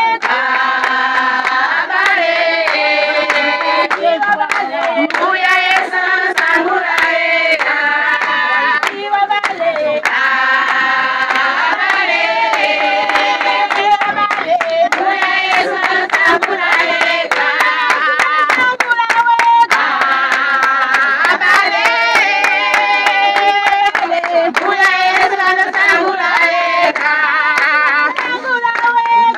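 A group of people singing together, with hand-clapping keeping the beat throughout.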